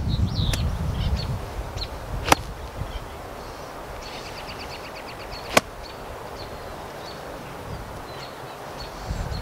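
Crisp click of a seven-iron striking a golf ball about two seconds in, followed a few seconds later by a second sharp click; small birds chirp and trill throughout.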